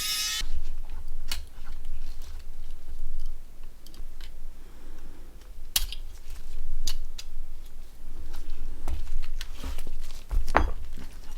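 Scattered clicks and light taps of small plastic and metal mobile-phone parts being handled and set down. A few sharper clicks stand out in the middle and near the end.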